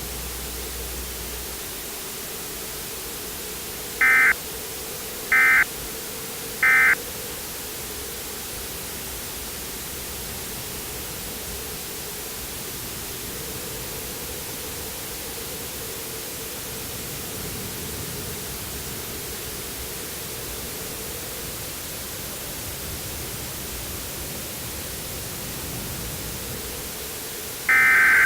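Three short bursts of EAS digital data tones, the warbling end-of-message code, about a second and a half apart. Steady radio static with a faint low hum follows, and near the end a longer data burst starts, the opening of the next alert's header.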